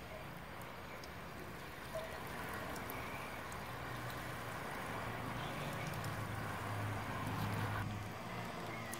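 Butter sizzling as it melts and foams in hot oil in a nonstick frying pan, the sizzle growing louder over the last few seconds.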